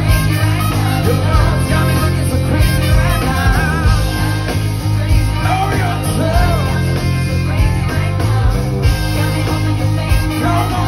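A live pop band plays loud, with a strong low end, drums and a horn section. A male singer's wavering vocal line runs over the top.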